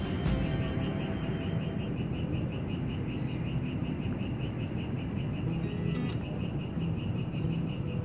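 Crickets chirping in a fast, even, steady pulse, with a low steady rumble underneath.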